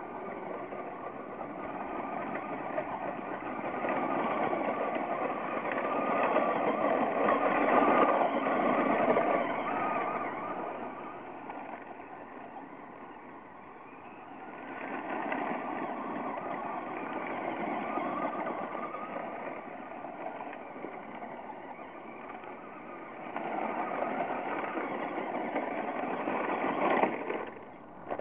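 Traxxas Slash radio-controlled short-course truck driving over loose gravel, its motor and tyres running continuously and growing louder three times as it comes close, with a sharp peak near the end.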